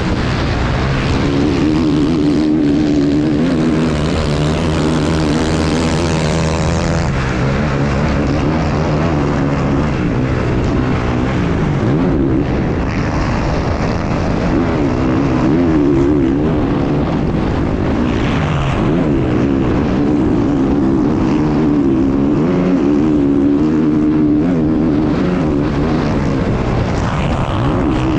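Enduro race motorcycle engine running hard, recorded from on the bike, its pitch rising and falling again and again with the throttle, over a steady rush of wind and noise.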